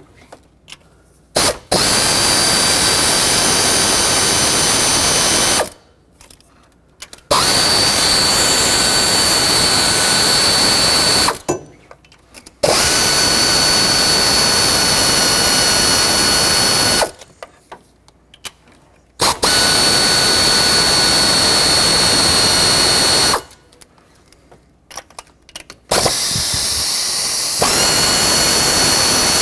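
Power tool spinning a 10 mm socket to unthread the captive valve cover bolts, one after another. It runs steadily with a constant whine in five runs of about four to six seconds, with short pauses between them.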